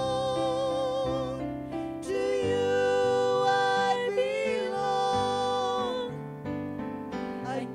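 Slow live worship song: a woman singing long held notes with vibrato over sustained keyboard chords.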